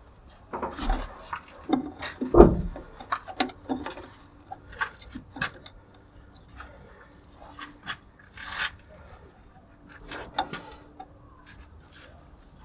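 Irregular clinks, knocks and short scrapes of hand tools against the metal parts of a drum brake being taken apart, with one louder knock about two seconds in.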